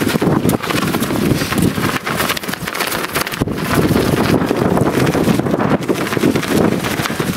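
Strong mountain wind buffeting the microphone, rising and falling in gusts.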